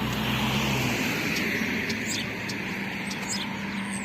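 A motor vehicle passing by, its noise swelling and then easing, with short bird chirps.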